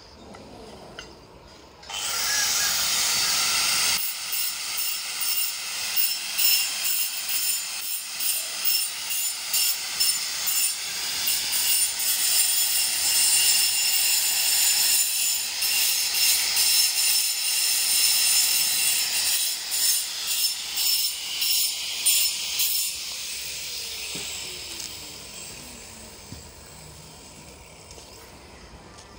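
Handheld electric angle grinder cutting red clay floor tiles: it starts abruptly about two seconds in and runs with a rising and falling grinding noise as the disc bites into the tile. Near the end it is switched off and winds down over a few seconds.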